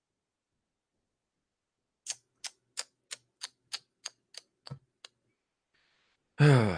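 About ten sharp clicks, evenly spaced at roughly three a second, like keys or a mouse button pressed at a computer. Near the end a man gives a loud, short voiced exhale like a sigh.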